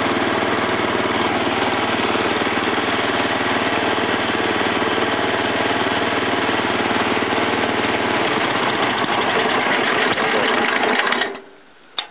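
Arctic Cat Grass Cat lawn tractor engine running steadily at idle, then stopping suddenly about eleven seconds in, the engine being shut off.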